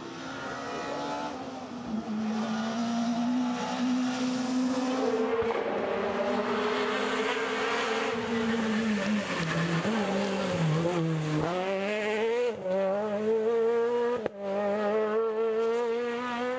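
Rally car's engine running hard on a tarmac stage: the note holds high, drops as the driver lifts off for a corner, then climbs steeply through the revs with a sharp gear change about two-thirds of the way in before rising again.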